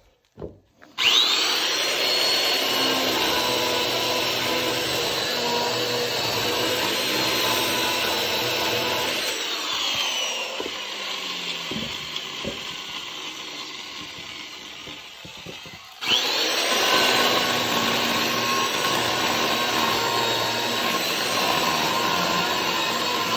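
Electric chainsaw cutting firewood: the motor starts with a rising whine and runs loudly, slows and quietens partway through, then starts up again with another rising whine.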